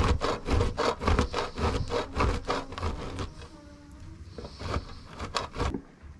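Block of kolot cheese rubbed quickly back and forth on a hand grater: a fast, even run of rasping strokes, about three or four a second, that thins out after about three seconds, with a few last strokes near the end.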